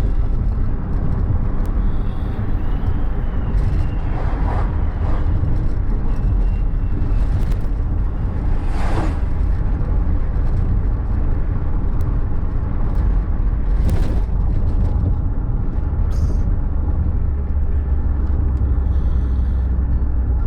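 A person snoring, breaths swelling about every four to five seconds over a steady low rumble.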